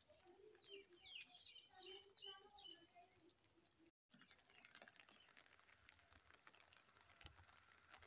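Faint bird chirps and calls through the first half. The sound drops out for a moment about halfway, then only a faint, steady hiss of light rain remains.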